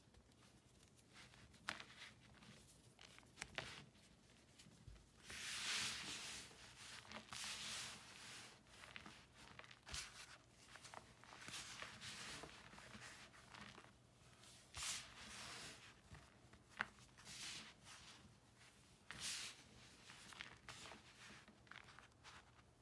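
Hands crumbling and raking dried pressed cornstarch, calcium carbonate and chalk: soft, irregular crunching and powdery rustling, with small sharp cracks now and then.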